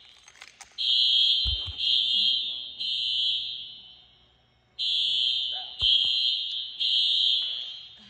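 Alarm sounding in repeated high-pitched electronic blasts, each about a second long and fading, with a short break about halfway through.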